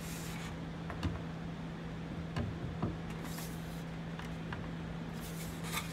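A few light knocks and rubbing as cedar bench parts are handled and positioned on a wooden workbench: one knock about a second in and two more a little after two seconds, with short scuffs near the middle and end, over a steady low hum.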